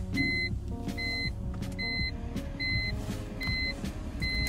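Electronic warning chime of a BMW E46 beeping repeatedly: six short, high beeps evenly spaced about every 0.8 s, over a low rumble.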